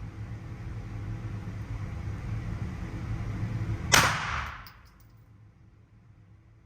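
A single gunshot about four seconds in, sharp and loud with a short echoing tail, over a steady low hum.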